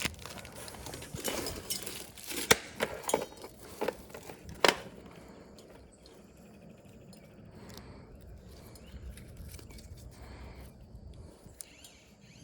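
Small hard parts being handled: several sharp clinks and knocks in the first half, then quieter rustling and light handling.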